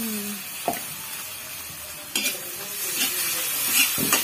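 Ginger and garlic sizzling in hot oil in a metal kadai, with a spatula stirring and clinking sharply against the pan a few times.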